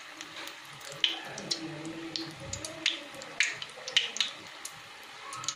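Batter-coated stuffed green chilli deep-frying in hot oil in a kadai: a steady sizzle broken by irregular sharp pops and crackles.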